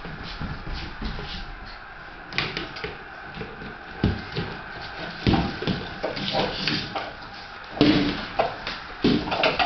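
Two small dogs playing on a tile floor: claws clicking and scuffling, with irregular knocks and thumps that get busier and louder in the second half.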